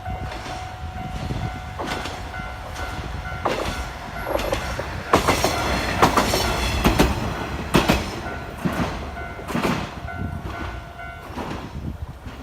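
A Tenryū Hamanako Railroad train passing over a level crossing, its wheels clacking over the rail joints, loudest about five to eight seconds in. The crossing's warning bell rings at the same time as a steady electronic tone.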